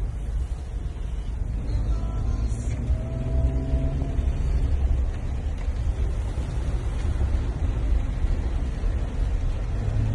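Road vehicles running, a steady low rumble with an even hiss over it, and a faint engine or brake tone about two to four seconds in.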